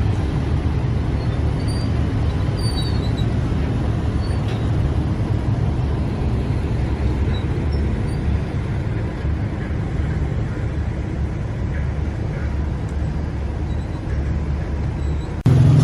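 Steady low rumble of engines on a car ferry carrying many motorcycles, with a louder sound starting abruptly just before the end.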